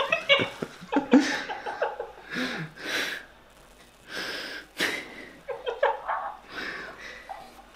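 Breathy, quiet laughter and sniffing mixed with a few murmured words, and a sharp knock about five seconds in.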